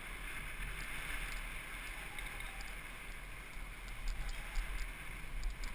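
Wind buffeting the microphone of a helmet camera on a moving bicycle, over a steady hiss of tyres rolling on asphalt, with faint irregular ticking.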